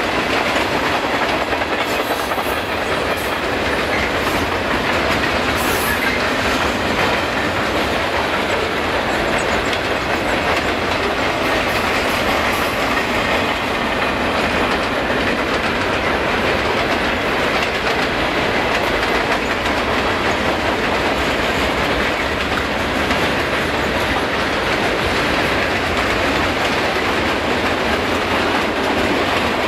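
Freight train cars (tank cars, boxcars and covered hoppers) rolling steadily past: continuous wheel-on-rail rumble with clickety-clack over the rail joints.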